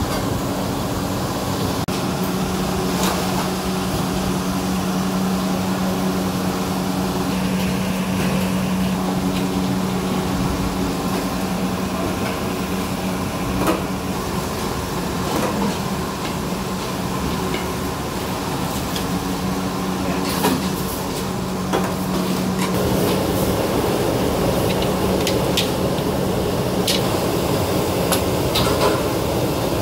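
Steady mechanical hum of a commercial kitchen, with a held low drone and now and then a sharp metal clink from pots and ladles.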